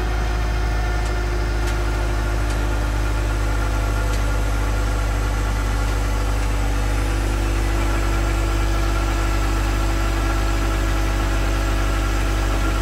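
Large forklift's engine idling with a steady low drone, its pitch stepping up slightly about seven seconds in.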